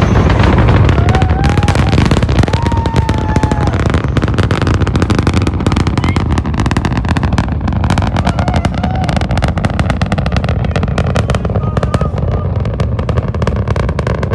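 Space Launch System rocket lifting off: a deep, continuous rumble with dense, rapid crackling over it.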